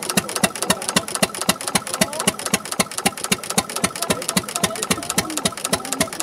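Horch engine idling steadily, an even, rapid run of firing beats with no change in speed.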